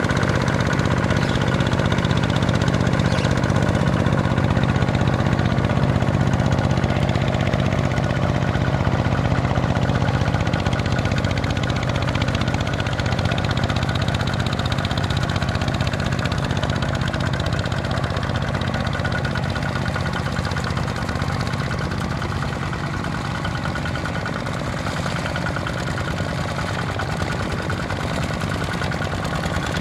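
Single-cylinder diesel engine of a Kubota ZT155 two-wheel walking tractor running steadily under load as its cage wheels churn through paddy mud. It grows slightly quieter in the second half.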